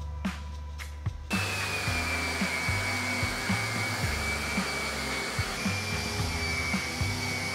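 An electric woodshop power tool switches on about a second in and runs steadily with a high whine and a hiss, over background music with a steady beat.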